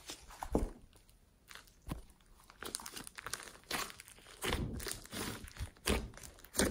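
Glossy slime mixed with clay and crunchy foam being pressed, stretched and poked by hand, giving irregular crackles and pops. The sounds are sparse early in the clip and come thicker in the second half.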